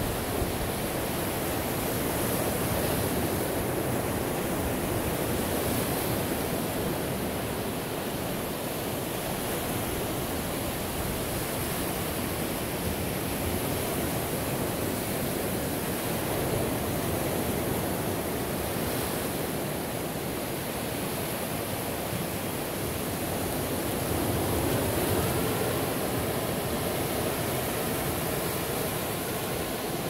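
Ocean surf washing onto a shore in a continuous rush, gently rising and falling in loudness.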